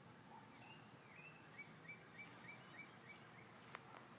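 Faint bird calls: a few high chirps, then a run of about seven short repeated notes at roughly three a second.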